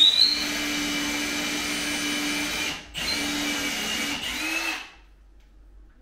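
Cordless drill boring upward into the ceiling to tidy up and widen an existing hole: a steady motor whine. The drill stops briefly about three seconds in, runs again, and stops about five seconds in.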